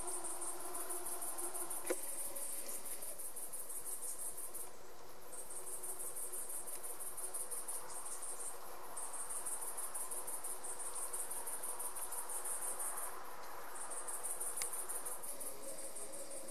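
Crickets chirping in a fast, high, pulsing trill that stops briefly a few times, over a faint lower hum, with a single sharp click about two seconds in.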